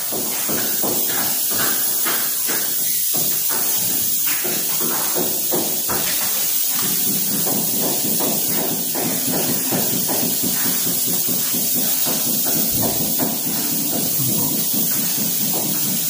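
Footsteps and rustling from a hand-held phone as someone walks through the rooms, irregular soft knocks over a steady hiss.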